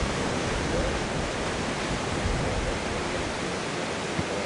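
Steady rushing noise of ocean surf breaking and washing onto the beach.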